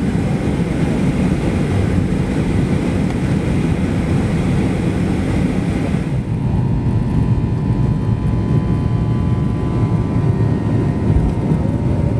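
Jet airliner engines running: a steady loud rumble with a hiss above it. About six seconds in, the hiss drops and a few thin steady whining tones come in.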